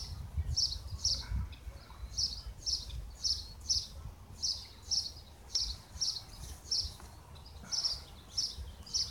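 A bird chirping over and over, short high chirps at about two a second, over a low rumble.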